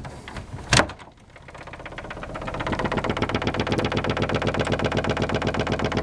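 Door rattling in its frame, shaken by subsonic bass tones from the subwoofers: after two sharp knocks at the start, a fast, even rattle builds up over about a second and then holds steady.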